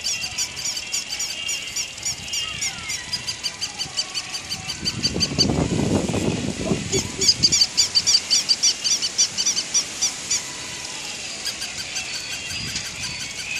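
Battery-operated plush toy giving a fast run of high, even squeaks, about five a second, which stops for a couple of seconds and then starts again. A lower, rougher sound fills the gap between the two runs.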